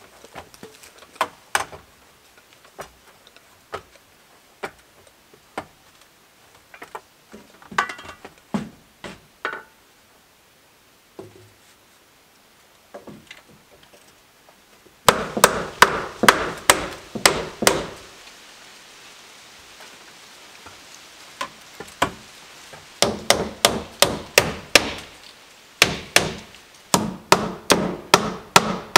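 Hammer driving nails into wooden boards: scattered knocks at first, then, from about halfway, runs of quick strikes, three or four a second, with short pauses between the runs.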